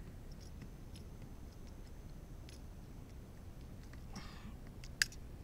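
Faint scattered clicks and ticks of needle-nose pliers on a buzz bait's hooks as the lure is worked free of a fish's mouth, with one sharp click about five seconds in.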